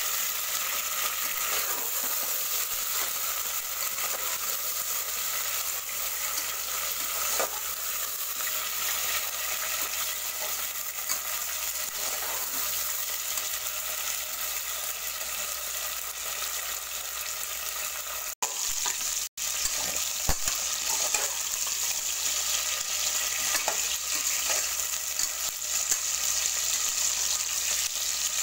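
Cauliflower florets frying in an aluminium pressure cooker: a steady sizzle, with the light clink and scrape of a metal slotted spoon stirring them. The sound cuts out briefly twice about two-thirds of the way through.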